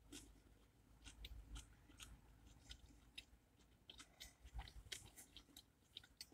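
Faint chewing of a mouthful of roast beef sub with crispy fried onions: scattered soft crunches and mouth clicks at an irregular pace.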